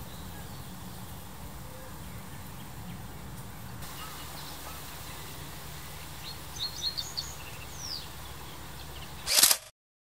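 Outdoor ambience: a steady low rumble under a faint hiss, with a few short high bird chirps and one falling whistle about two-thirds of the way in. Near the end a brief loud rushing burst, then the sound cuts out abruptly.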